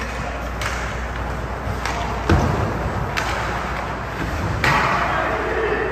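Ice hockey play heard in a rink: several sharp clacks of sticks and puck, a heavy thud about two and a half seconds in, and a brief scraping hiss near the end, over a steady low hum.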